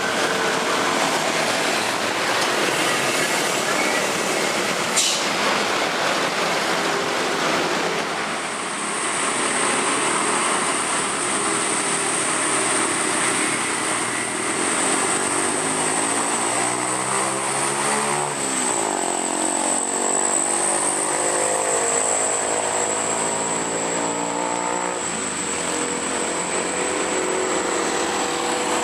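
Heavy road traffic on a steep uphill grade, engines running steadily. One vehicle, likely a bus, passes close about two-thirds of the way through, its engine note sweeping up and then dropping as it goes by. A steady high-pitched whine runs through most of the second half.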